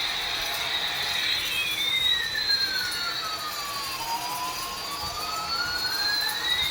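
Electronic jet-engine sound effect from a toy Airbus A380's speaker: a steady high-pitched whooshing whine with a whistle that splits in two about a second in, one pitch sliding down and climbing back while the other rises a little and falls, meeting again near the end.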